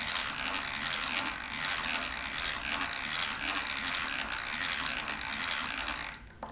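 Egg-beater hand drill cranked steadily, its gear wheel driving the pinion, as a 1/4 inch bit bores into a wooden board. The cranking stops near the end.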